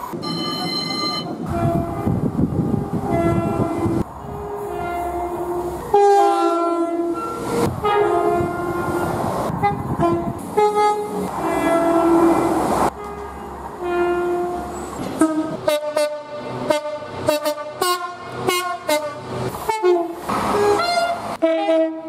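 British passenger trains, among them Class 172 diesel multiple units, sounding their horns one after another, two notes of differing pitch in turn. Long blasts come first, then a quick string of short toots from about 15 to 20 seconds in, with the trains' running noise beneath.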